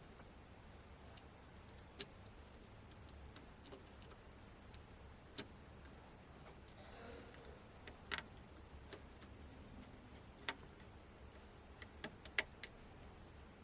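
Sparse, irregular light clicks and taps of small tools and parts being handled during a tablet teardown, about a dozen in all, over a faint low hum.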